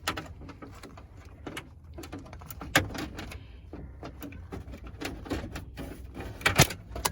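Irregular clicks, rattles and knocks of tools and parts being worked loose inside a junked vehicle, with two sharp, louder knocks about three seconds and six and a half seconds in.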